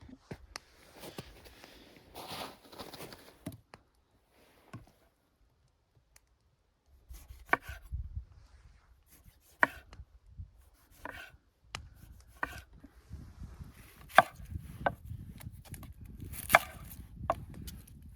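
A blade chopping into wood: sharp single strikes, each a second or two apart, after a few seconds of rustling and a short pause.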